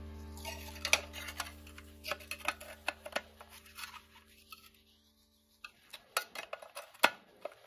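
A held chord of background music fading away, with scattered light, sharp clicks and clinks.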